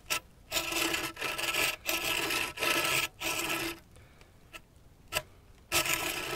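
Dull 21-inch Bahco peg-tooth bow saw blade pushed and pulled across a small log in quick strokes, pausing for about two seconds midway and then starting again. The worn, flat-tipped teeth skate over the wood at the start of the cut instead of biting in, the sign that the saw needs sharpening.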